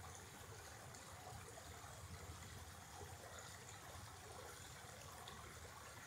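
Shallow creek water trickling and babbling over rocks, faint and steady.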